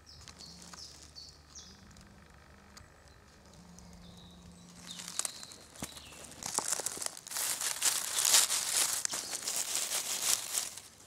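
Faint birdsong chirps for the first few seconds, then, about halfway through, close loud rustling and crinkling of dry leaf litter and a cloth bag as hands handle freshly picked morels.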